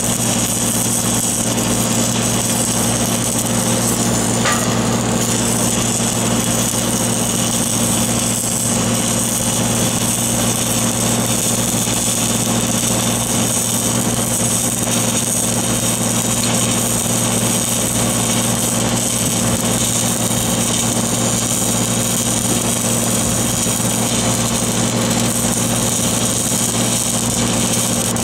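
Engine-driven welding machine running steadily, with a steady high hiss over its hum.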